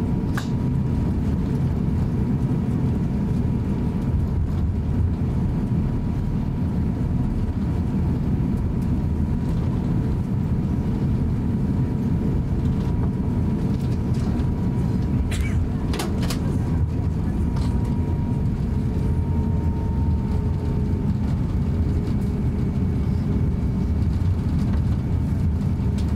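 Steady cabin rumble inside a Japan Airlines Airbus A350-900 as it taxis, from its Rolls-Royce Trent XWB engines at taxi power, with a faint steady tone above the rumble. A few faint clicks come about halfway through.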